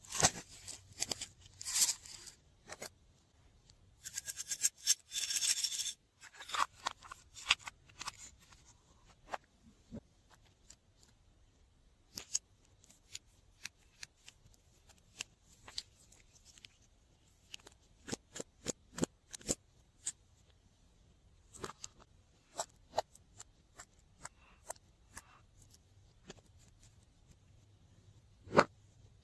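Slime being handled and mixed, giving off short sharp sticky clicks and pops. There is a denser run of crackling about four to six seconds in, then scattered single clicks.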